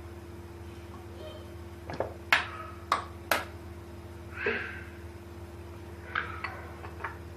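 Sharp kitchen handling clicks and knocks: four about two to three and a half seconds in, a short rustle after them, and three smaller ones near the end, over a steady low hum.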